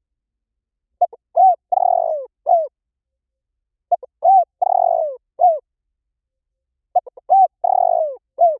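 Spotted dove cooing: three identical phrases about three seconds apart, each a couple of short notes followed by a longer falling coo and a short final note.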